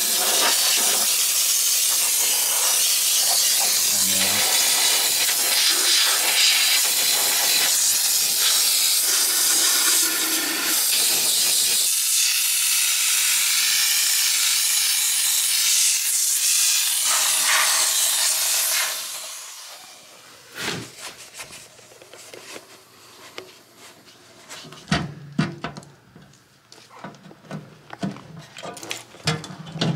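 Handheld steam cleaner spraying steam under a car's chassis: a loud, steady hiss that cuts off about two-thirds of the way through. After it, much quieter scattered clicks and knocks of hands working at a body panel.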